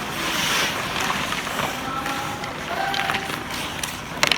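Inline hockey game sounds: skate wheels rolling on the rink floor under a general hall hubbub, with a few sharp clacks of sticks and puck near the end.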